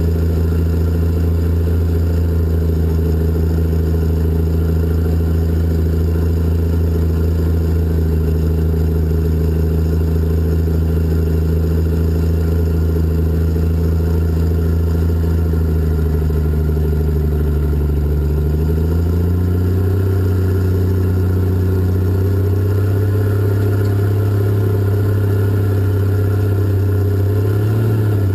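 Cat 627 scraper's diesel engine running loud and steady, heard from the cab right behind the engine. Its pitch rises smoothly about two-thirds of the way through and holds at the higher speed, with a brief waver near the end.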